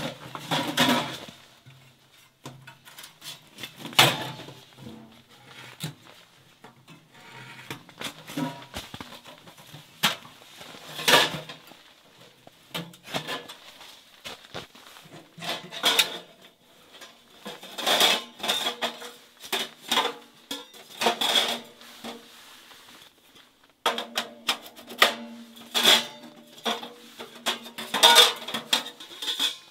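Sheet-metal wood stove being set up on a fire mat: irregular clanks, knocks and rattles of its metal box, legs and top being handled and fitted, in separate bursts.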